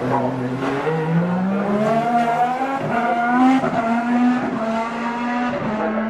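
Formula 1 car's 1.6-litre V6 turbo hybrid engine accelerating hard, its pitch climbing in steps through several quick upshifts.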